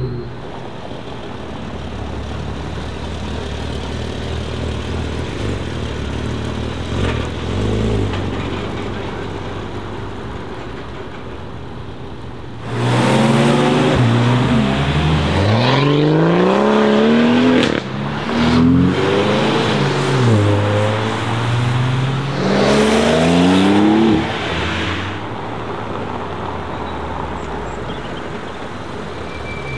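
Porsche 718 Cayman GT4 RS's 4.0-litre naturally aspirated flat-six engine accelerating hard. For about twelve seconds it is loud, its pitch climbing again and again, broken by several gear changes. Before and after, a lower, steady engine rumble.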